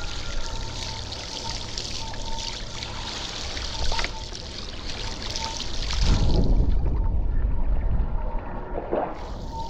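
Water rushing and hissing past a paddleboard running downwind, with wind rumbling on the microphone. About six seconds in, the hiss drops away and a low rumble is the loudest sound for about three seconds.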